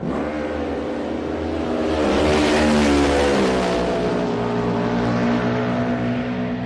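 Motorcycle engine running, its pitch wavering as it builds to its loudest about three seconds in, then holding a steady note.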